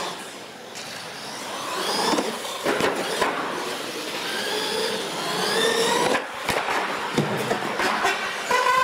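R/C monster trucks racing on a concrete floor: motors whining, rising and falling in pitch as they accelerate, with the clatter and knocks of the trucks' tyres and chassis hitting the floor. One truck tumbles and flips near the end.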